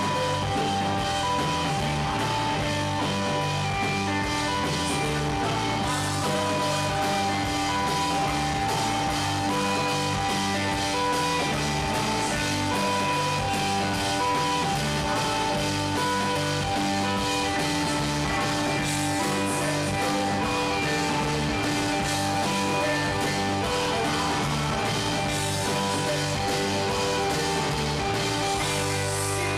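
A rock band playing live: electric guitar over a drum kit, with a steady beat that runs without a break.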